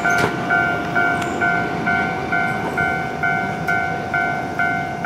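A Japanese railway level-crossing warning bell rings in a steady electronic clang, about two strikes a second. Under it runs the rumble of a Keio Line electric commuter train passing.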